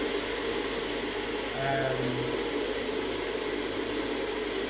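Steady running noise of a laboratory open-channel flume: its water pump and the water flowing through the channel past the sluice gate, an even rush and hum with no change.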